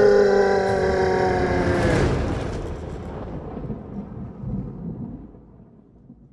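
A creature's long, deep roar, sung on one sliding pitch that bends downward and breaks off about two seconds in, followed by a low rumble that fades away.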